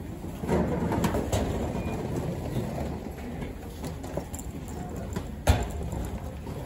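Passengers and their luggage shuffling through a bus doorway: rolling suitcases, bags and footsteps with scattered knocks over a low rumble, and one sharp thump about five and a half seconds in.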